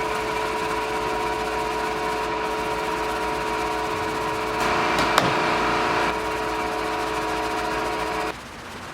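Electric sander motor running steadily against a wooden drum shell, a whine with hiss. It gets louder for a second or so in the middle, with a couple of sharp ticks, then cuts off suddenly near the end.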